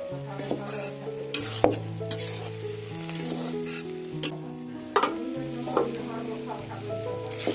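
A spatula stirring and scraping in a frying pan, with sharp scrapes and taps about a second and a half in and again about five seconds in, while the food sizzles. Background instrumental music runs underneath with a slow melody.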